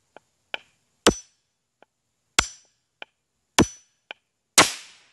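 A claw hammer strikes a steel hatchet head repeatedly, hard metal-on-metal blows about every second with a short ring, mixed with lighter taps. The last and loudest blow, near the end, is a sharp crack with a longer tail: the tiny packet of potassium chlorate and aluminium flash powder finally going off under impact.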